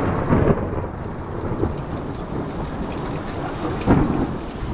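Rolling thunder rumbling over steady rain, swelling again near the end.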